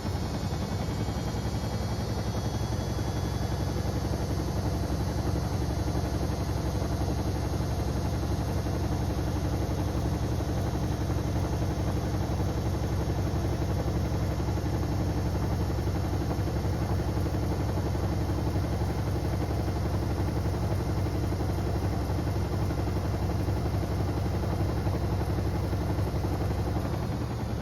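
Beko WM74135 washing machine spinning a load of door mats: a steady motor whine over a low drum rumble, rising slightly in pitch over the first few seconds and then holding, beginning to fall away at the very end.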